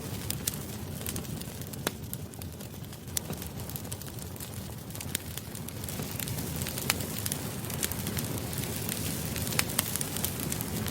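Campfire burning: a steady low rumble of flames with sharp wood crackles and pops at irregular intervals.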